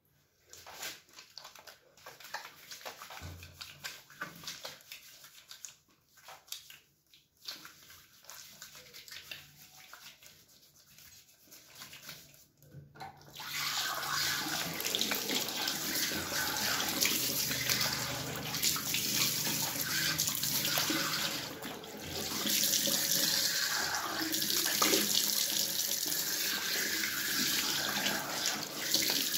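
Faint rubbing and small splashes of wet, soapy hands; about halfway through a sink tap is opened and water runs steadily into the basin, splashing as it is scooped up onto the face.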